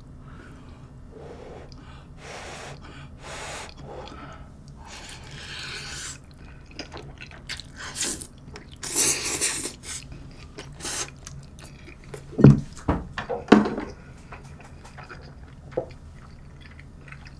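Close-miked eating sounds: a person slurping up creamy spaghetti and chewing, with wet mouth noises. There is a loud slurp about nine seconds in and a few sharp low thumps between twelve and fourteen seconds in.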